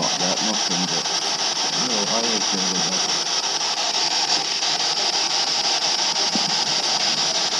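Spirit box radio scanner giving a steady hiss of static, broken by fast, even clicks as it sweeps through the stations.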